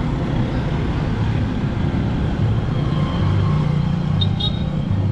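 Street traffic dominated by motorcycle and scooter engines running close by, a steady low rumble that swells in the second half. A few short high chirps sound about four seconds in.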